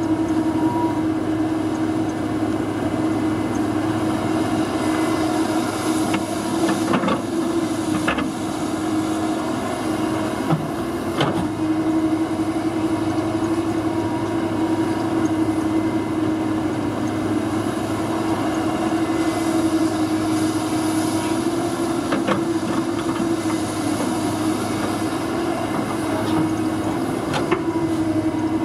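Kobelco SK235SR excavator's diesel engine running with a steady drone as the machine digs and piles snow, with a few sharp knocks scattered through.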